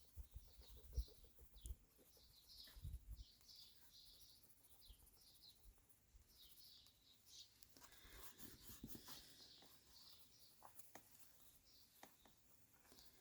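Faint, repeated high chirping of small songbirds, with a soft knock about a second in. From about eight seconds in, the faint scratching of a coloured pencil shading on paper.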